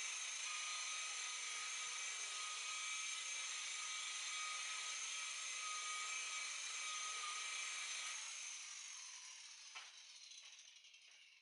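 Electric rotary buffer running steadily with a high whine while compounding the hull, then switched off about eight seconds in and spinning down, its whine falling in pitch and fading.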